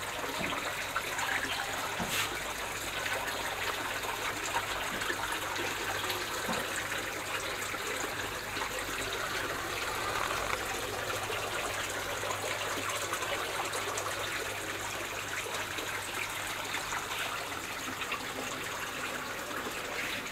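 Water steadily trickling and splashing in an aquaponic grow bed filled with clay pebbles.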